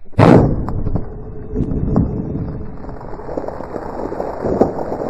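A single shotgun blast, the shot striking the target right beside the microphone, followed by a long rough rush of noise with a few faint clicks as debris settles.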